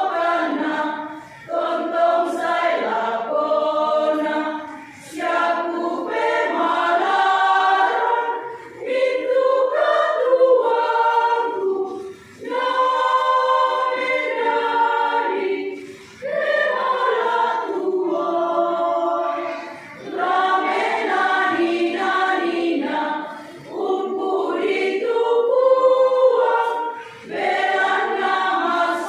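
Women's choir singing in sustained phrases, with short breaks between phrases every three to four seconds.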